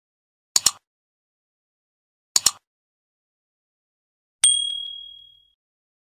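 Subscribe-button sound effect: two quick double mouse clicks about two seconds apart, then a single bright notification-bell ding that rings out and fades over about a second.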